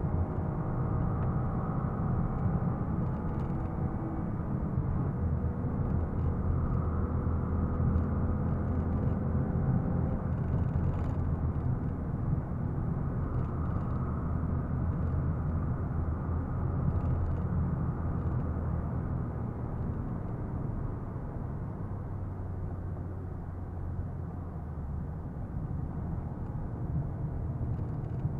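Ford Fiesta (80 PS) heard from inside the cabin at speed: the engine pulls under steady tyre and road noise, with faint engine tones audible in the first ten seconds. The noise eases a little after about twenty seconds.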